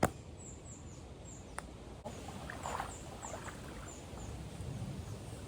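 Riverside ambience: small birds repeating high, thin, falling chirps, over the faint wash of the river's running water.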